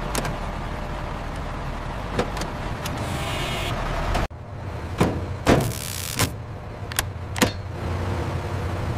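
Heavy machinery running with a steady low hum. About four seconds in it cuts off abruptly, a handful of sharp knocks follow, and the steady running resumes near the end.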